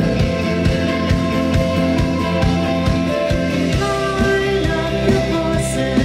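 Live rock band playing through a PA: electric guitars, bass and drums with a steady beat. About four seconds in the chord changes and a singing voice comes in.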